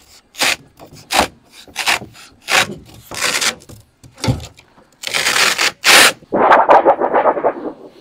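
Thin sheet-metal skin being pulled and peeled off a refrigerator cabinet by hand: a series of short scraping rips, then longer, louder scraping in the last three seconds.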